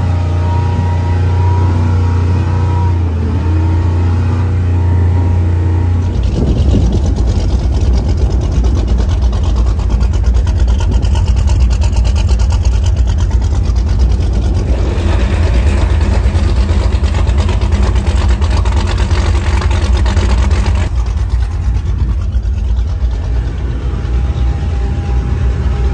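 30-foot Phantom Pro-Stock V offshore race boat's engine running at low, idle-level speed. It hums steadily at first, turns to a rougher, heavier rumble about six seconds in, and a hiss joins for several seconds in the middle.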